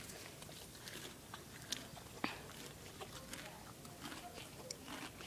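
A pony grazing, tearing off and chewing mouthfuls of grass and weeds: faint, irregular crunching and ripping.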